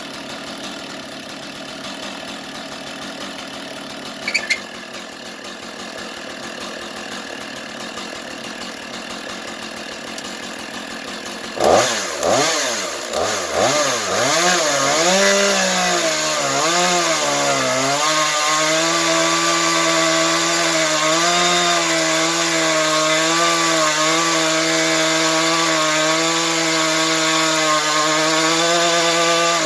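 Chainsaw on a rail-guided chainsaw mill idling, then about twelve seconds in revving up and down several times before settling into a steady high-speed run as it slabs wood.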